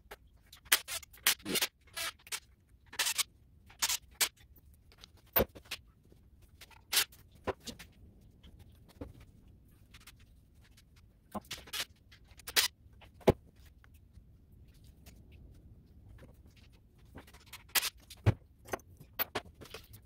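Irregular sharp clicks and short metallic clanks of hand tools and engine parts being handled while the ignition coil brackets are unbolted from an LS V8, with quiet gaps between and a few louder knocks.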